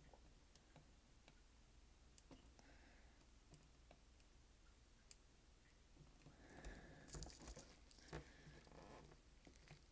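Near silence with a few faint ticks, then, from about six and a half seconds in, a couple of seconds of scratching and clicking as hands shift a disassembled calculator and a soldering iron's handpiece.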